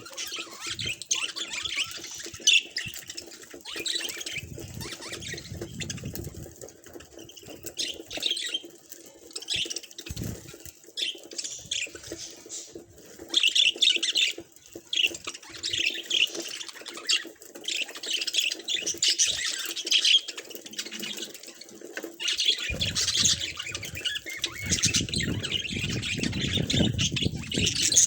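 Budgies chirping and chattering: a run of short high chirps and warbles, with a low rustling rumble mixed in during the last few seconds.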